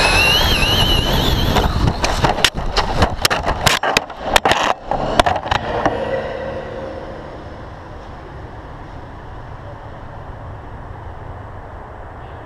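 A radio-controlled car's motor whines and climbs in pitch as it speeds up. About two seconds in, a rapid series of sharp cracks and clatters runs for roughly four seconds as the RC cars collide and tumble, and after that only a low steady background hum remains.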